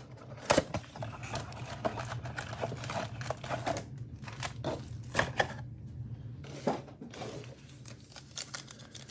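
Cardboard trading-card blaster box being opened and its foil card packs handled: a string of sharp crackles, crinkles and rustles of cardboard and foil wrapper.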